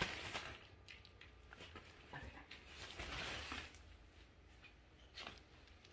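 Faint rustling and crinkling of a nylon pop-up cat tent and tunnel as a cat moves about inside, with a few soft knocks near the start.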